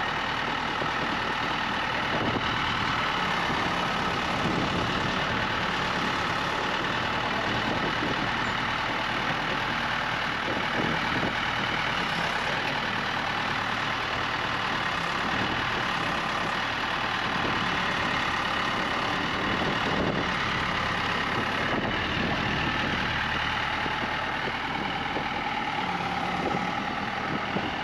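A truck engine running steadily.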